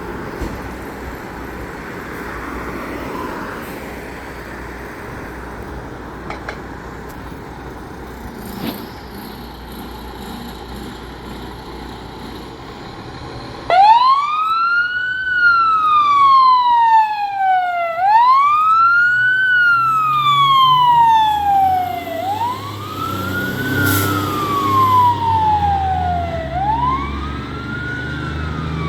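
Background street noise, then about 14 seconds in a fire engine's siren starts abruptly. It wails in repeated sweeps, each rising quickly and falling more slowly, about four seconds apart. Partway through, the truck's engine rumbles low underneath.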